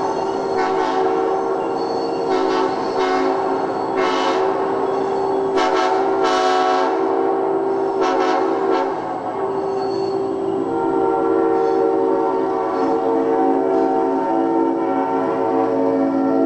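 Diesel locomotive air horn blowing a long, loud multi-note chord. It dips briefly about nine seconds in and is held again on a slightly different chord. Short bursts of clatter sound over it in the first half.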